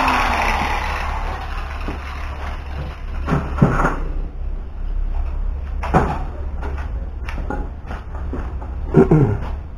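Angle grinder spinning down, its whine falling in pitch and dying away within the first second. A low steady hum follows, with a few sharp knocks at uneven intervals.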